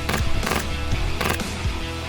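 Background music with a steady beat: a held bass line under sharp drum hits.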